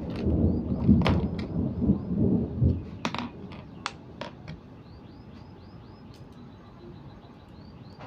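Low rumble of distant thunder for the first three seconds or so, with a few sharp clicks. As it fades, a high, quick chirp repeats about three to four times a second, with a brief steady whistle in between.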